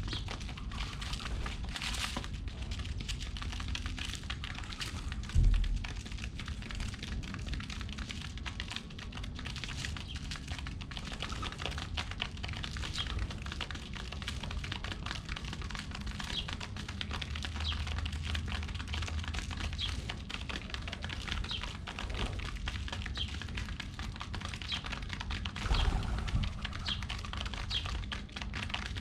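Pigeons pecking at scattered seeds: a dense, steady patter of light taps, with a couple of low thumps about five seconds in and near the end.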